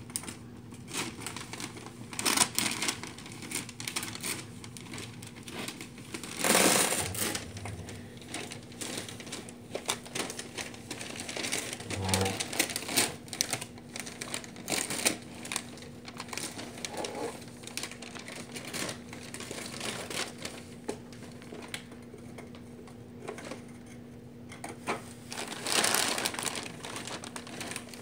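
Gift wrapping paper crinkling, rustling and tearing as a toddler's hands pull at a wrapped present, in short irregular crackles, with two louder bursts, one about six seconds in and one near the end.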